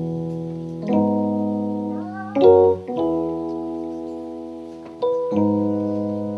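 Electronic keyboard playing held chords that slowly fade, changing every second or two, with a short louder chord about two and a half seconds in.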